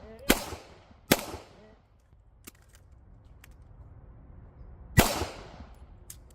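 Three pistol shots at clay pigeon targets: two about a second apart near the start, then a third about four seconds later, each with a short echoing tail.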